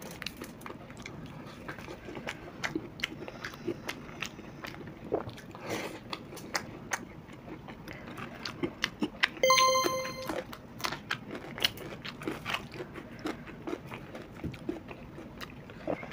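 Close-up crunching and chewing of fried pakoras, a stream of sharp crunches without talk. About two-thirds of the way through, a short ringing tone sounds for under a second, the loudest thing.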